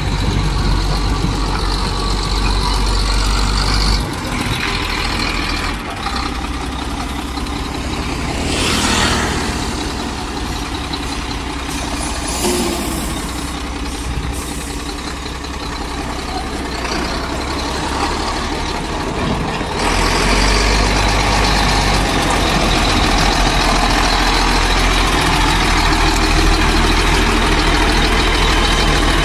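Howo A7 tractor unit's diesel engine idling steadily, louder and closer from about twenty seconds in. A brief hiss sounds about nine seconds in.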